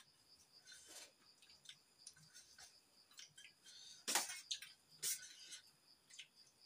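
Spoons clinking and scraping on steel plates during a meal, with the loudest scrapes about four seconds in and again a second later.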